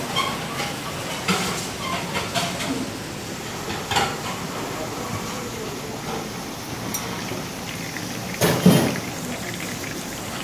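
Commercial kitchen ambience: a steady hiss with scattered clatter and knocks of pans and utensils on steel counters, the loudest clatter near the end, and faint voices.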